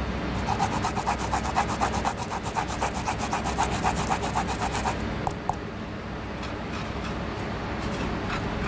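A fresh root being grated on a flat metal grater with fine holes: fast rasping strokes, several a second, that stop about five seconds in, followed by a couple of light taps.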